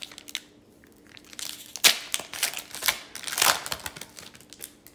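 Wrapper of an Upper Deck Series 2 hockey card pack being torn open and crinkled, in several crackling bursts: the sharpest about two seconds in, another cluster about three and a half seconds in, then a few light clicks.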